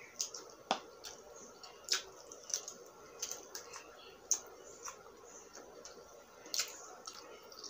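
Close-up eating sounds of a person chewing barbecued pork rib meat: irregular wet smacks and mouth clicks, one every half second to a second or so.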